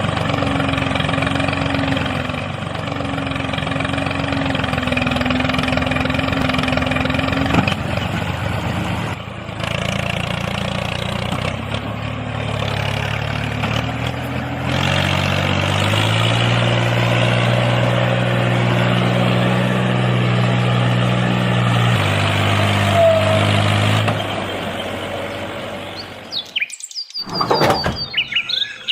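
An engine running steadily with a low hum, its note shifting about halfway through, then stopping a few seconds before the end, followed by a few quick high chirps.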